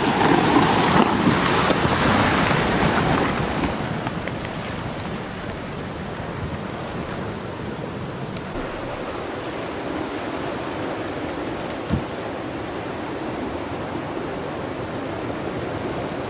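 Flash flood debris flow rushing down a dry desert wash: a steady rush of muddy floodwater churning logs and brush, louder for the first few seconds and then even. A single brief thump about twelve seconds in.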